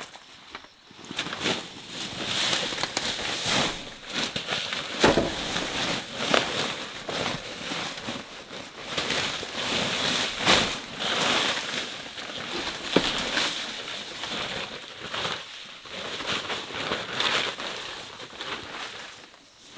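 Woven plastic sacks rustling and crinkling as they are handled and tipped out, with rice husks pouring from them in a rushing hiss and crackle of dry bamboo leaves underfoot.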